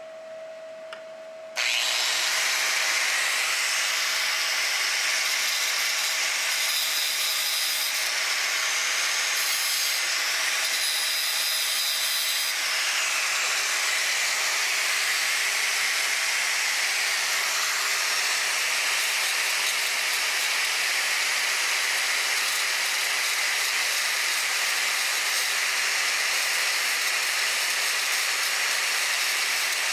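Angle grinder with a thin cut-off disc: a steady whine as it spins free, then about a second and a half in the disc bites into rusty steel and cuts with a loud, steady grinding hiss.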